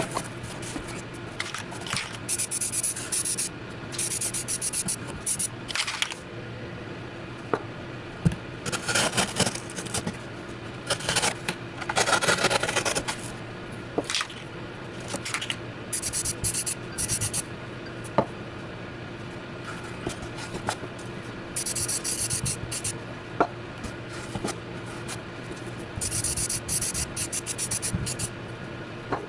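Aerosol spray-paint can spraying in a series of short hissing bursts, each a second or two long, with brief clicks between them. The can is nearly empty.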